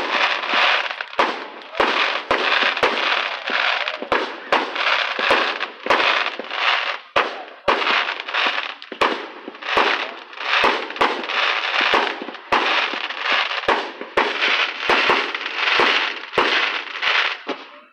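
Aerial fireworks going off in rapid succession: sharp bangs, about two or three a second, each trailed by a noisy smear, with no break until just before the end.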